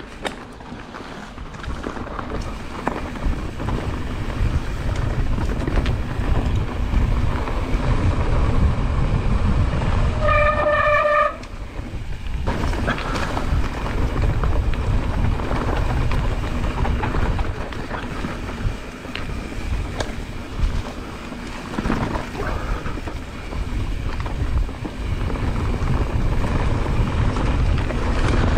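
Mountain bike rolling fast down a dirt forest trail: steady low rumble and rattle from the tyres and bike, with heavy wind buffeting on the handlebar camera's microphone. A brief high squeal about ten seconds in, after which the noise drops for a moment.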